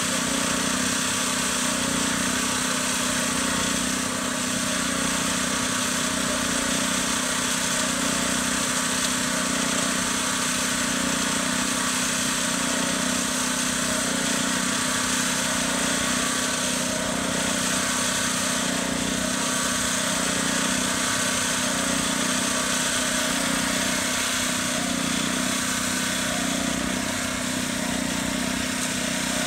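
Small gasoline engine running steadily at an even idle.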